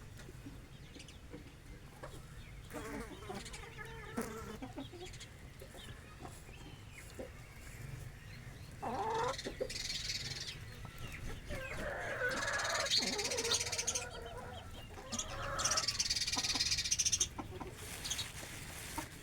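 Free-range hens and a rooster clucking while they feed on grain, with louder calls in the second half. Spells of high hiss come in about halfway through and again near the end.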